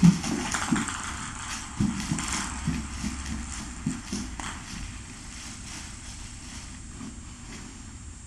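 Scattered thumps, knocks and rustling as toys and a fabric mat are handled on a hard floor during play with a cat, with a sharp thump right at the start. The knocks thin out about halfway through, leaving a faint steady room background.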